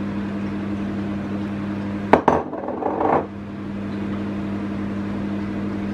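A hand-held mesh sieve of flour knocked and tapped over a mixing bowl to sift it: a sharp double clatter about two seconds in, then about a second of softer rattling. A steady low hum runs underneath.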